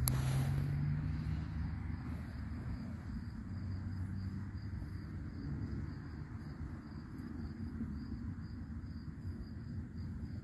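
Outdoor ambience: a steady low rumble with faint insect chirring, typical of crickets, and a brief click right at the start.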